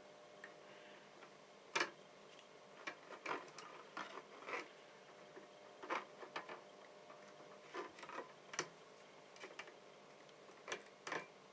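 Scattered small clicks and taps of hand work with wires and tools on a soldering bench, irregular, about a dozen, over a faint steady hum.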